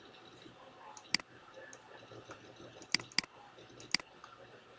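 Computer mouse button clicking: four sharp clicks, two of them close together about three seconds in, like a double-click.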